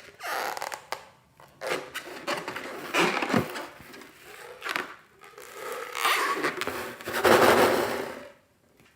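Irregular rubbing and scraping from toys being handled, in bursts of a second or so, the longest and loudest near the end.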